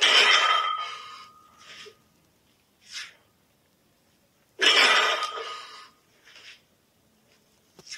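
A loaded barbell with bumper plates set down onto wooden pallet blocks twice, at the start and about four and a half seconds in. Each landing is a loud clatter with a ringing tone that dies away over about a second. A few short, fainter sounds come between.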